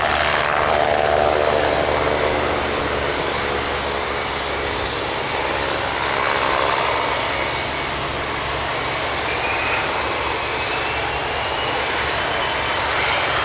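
McDonnell Douglas MD-88's two rear-mounted Pratt & Whitney JT8D low-bypass turbofans at takeoff thrust, a steady loud jet noise heard from behind as the airliner rolls away down the runway. A faint thin high whine sits over it in the second half.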